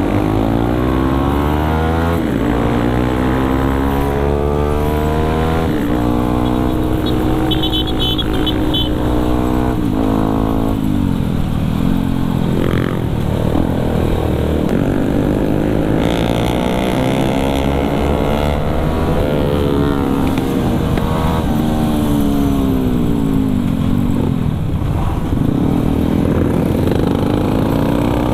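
Yamaha WR155R's single-cylinder four-stroke engine under way, revving up through the gears and easing off again and again, its pitch climbing with each pull and dropping at each shift or closing of the throttle. A short series of faint high beeps sounds around eight seconds in.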